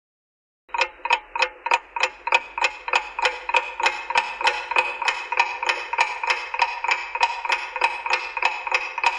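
Clock ticking, about three ticks a second, over a steady ringing tone. It starts sharply under a second in.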